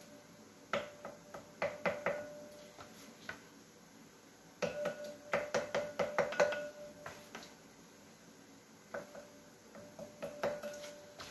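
A spatula tapping and scraping against a cut-glass trifle bowl while spreading strawberry glaze, in three runs of quick clicks, some leaving the glass ringing briefly with a clear tone.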